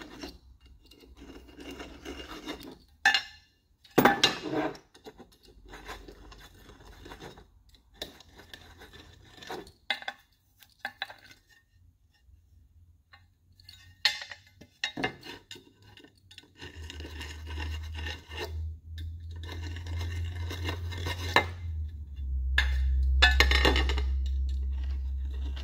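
Hand deburring tool scraping round the edges of freshly drilled holes in an aluminium bracket in short repeated strokes, with clinks and knocks as the part is turned and handled. The blade is dull but still cuts the soft aluminium. A low hum comes in during the second half.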